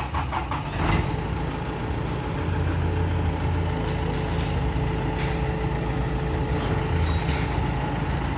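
Large vehicle engine idling steadily, with a few faint clicks.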